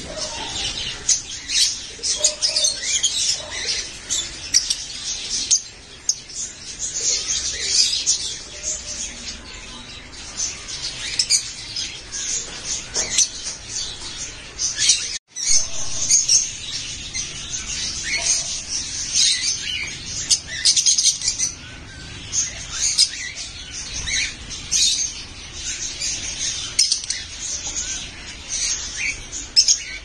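Masked lovebirds chattering: a constant stream of rapid, high-pitched chirps and squeaks, with a momentary break about halfway through.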